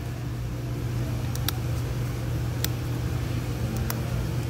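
Steady low mechanical hum, with a few faint light clicks from gloved hands handling the ignition coils on top of the engine.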